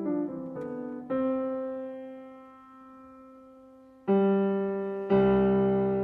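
Slow solo piano music: a few soft notes, then single notes and chords struck about a second in, at about four seconds and again a second later, each left to ring and fade.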